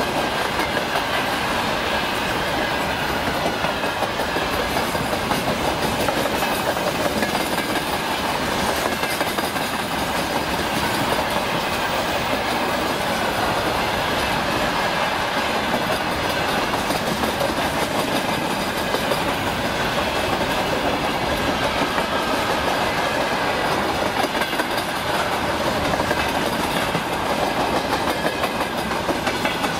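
A freight train's gondola wagons rolling past close by: a steady, loud rumble of steel wheels on the rails with continuous clickety-clack, unchanging throughout.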